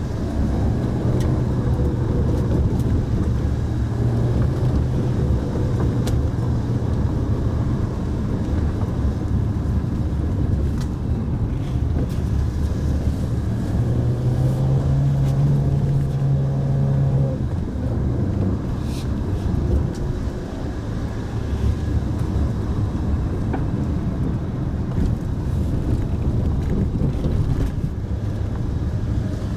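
Mitsubishi Pajero Mini driving, its small engine running steadily under road and tyre noise. The engine note rises briefly about halfway through, then settles back.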